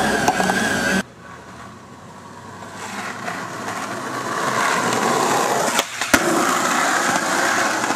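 Skateboard wheels rolling on asphalt, growing louder as the board approaches. About six seconds in come the sharp pop of an ollie and the clack of the landing, and the rolling carries on. It opens with about a second of a different steady noise with a high tone, which cuts off suddenly.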